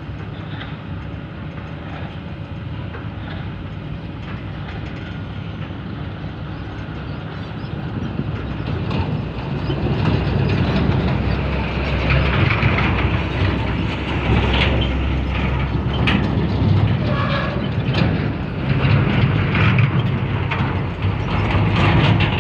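Tracked heavy machine travelling: its diesel engine running under the clank and rattle of steel crawler tracks, growing louder about eight seconds in.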